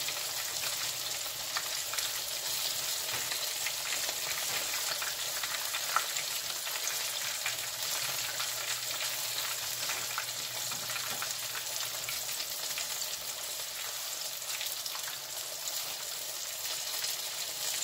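Breaded fish fillet frying in hot oil in a skillet: a steady sizzle full of small crackling pops, with one sharper click about six seconds in.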